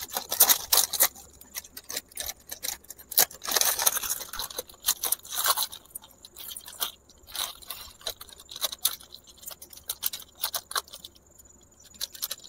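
Lay's potato-chip packet crinkling in irregular bursts as it is tipped and shaken over a small clay bowl, with crushed chips falling out into the bowl.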